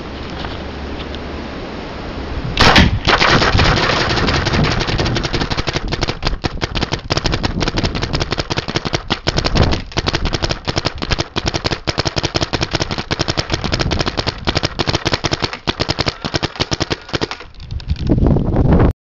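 G3 SE paintball marker with a TechT bolt engine firing semi-auto in a fast, unbroken stream of shots from about three seconds in, emptying a pod of paint. Near the end the shots thin out and then come in a last rougher burst, where the shooter says something is wrong.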